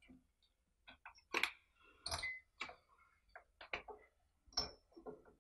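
Light, irregular clicks and taps, about a dozen, from hands handling the ignition coil, its wires and a card spacer against the plastic housing of a Stihl 017 chainsaw.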